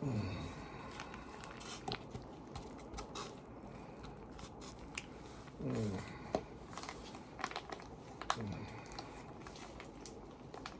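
Faint clicks and crinkles of an MRE's plastic food pouch and its contents being handled. Three short tones fall in pitch: one at the start, one about six seconds in, and one about eight seconds in.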